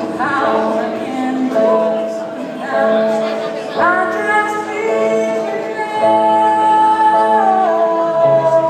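A woman singing a slow ballad live, accompanied by a Kawai digital piano. Her voice scoops up into phrases, then holds one long high note through the second half and steps it down near the end.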